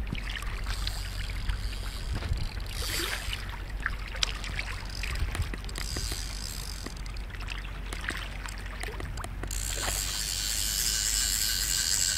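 Water sloshing and splashing in a shallow river, over a steady low rumble. For the last few seconds a louder, steady hiss of splashing comes in as a hooked trout thrashes at the surface.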